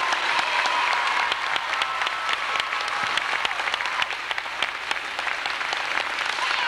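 Crowd in bleachers applauding, a dense run of separate sharp claps.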